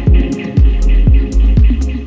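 Electronic dance music with a steady kick drum beat, about two beats a second, and crisp hi-hats on top.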